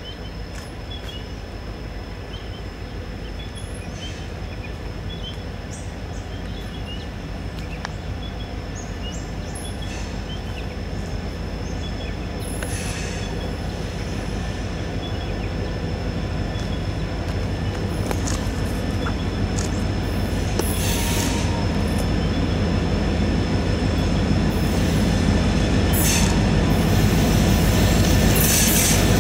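Heritage diesel locomotives, led by Victorian Railways C class C501 with T357 and P22, approaching with their engines running and the sound growing steadily louder, along with wheel and rail noise from the train.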